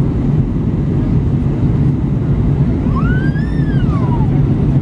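Steady low cabin noise of an Airbus A321 in flight, engines and airflow heard from a window seat over the wing. About three seconds in, a short high squeal rises and then falls in pitch.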